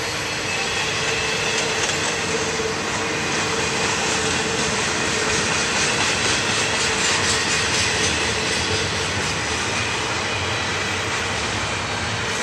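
Norfolk Southern double-stack intermodal freight train passing at speed: a steady rush and rumble of steel wheels on rail, with a rhythmic clatter over the rail joints in the middle.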